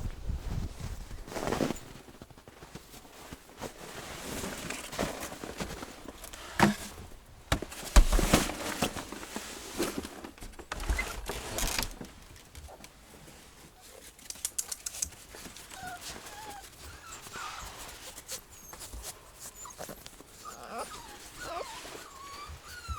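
Puppy whimpering with thin, wavering high squeaks in the second half, after a few scattered short knocks and clicks in the first half.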